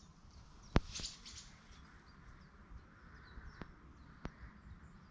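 Small birds chirping faintly over a low background rumble, with a few sharp clicks; the loudest click comes just under a second in.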